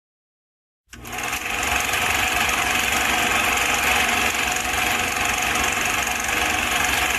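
A small machine starting up abruptly about a second in and running steadily with a dense mechanical clatter.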